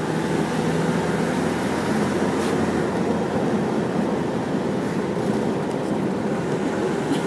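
Steady engine and road noise of a car driving at an even speed, heard from inside the cabin.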